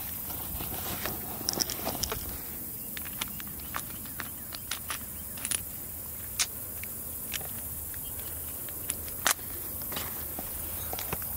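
Small metallic clicks and rattles of a Chiappa Rhino revolver being reloaded: cylinder swung out and fresh cartridges released into it from a 3D-printed squeeze-tab speed loader, with a sharper click about nine seconds in as the cylinder is closed. Steady background noise runs underneath.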